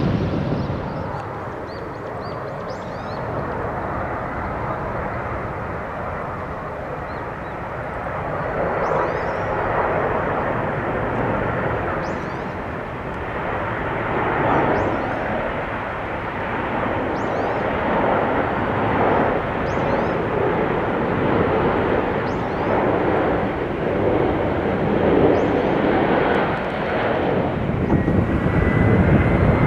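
Twin-engine jet airliners flying over on approach: a steady broad jet roar that swells and eases in slow waves. A thin high engine whine rises near the end as the next jet comes in.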